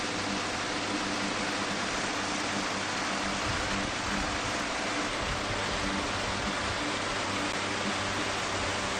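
Steady noise of a small motorboat under way: an even rush of wind and water with a faint, unchanging engine hum beneath it.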